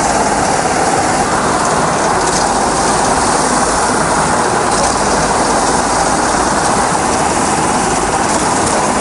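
Steady running of a bangka outrigger boat's motor with a rattling, mechanical clatter, mixed with the rush and splash of choppy water against the hull and outrigger as the boat moves.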